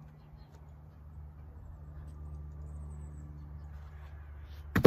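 A heavy cut log round is thrown down and lands with one loud thud near the end, over a steady low hum.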